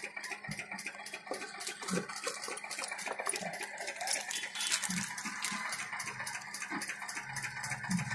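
Fast, even ticking, about four or five a second, with a few soft knocks as the keys are handled; a low steady hum comes in near the end.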